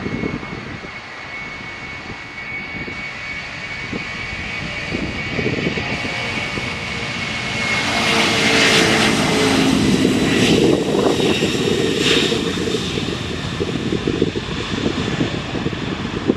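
Boeing 747-400's four jet engines at takeoff power as the airliner accelerates down the runway, a steady high whine with a growing rumble that is loudest about eight to twelve seconds in as it passes. Wind buffets the microphone.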